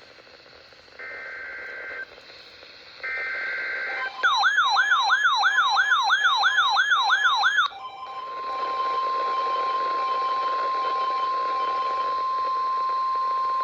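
Emergency Alert System signal on NOAA Weather Radio: two one-second bursts of the SAME digital header data tones, then a fast up-and-down warbling alert tone for about three and a half seconds, then the steady 1050 Hz weather radio alarm tone starting about eight seconds in. Together they mark the start of a severe thunderstorm watch alert.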